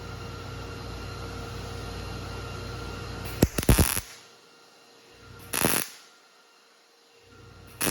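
Wire-feed (MIG) welder striking short arc bursts on thin sheet metal: three separate bursts, each under a second and a couple of seconds apart, stitching up a gap a bit at a time. Before the first burst a steady hum and hiss runs for about three seconds, then drops away.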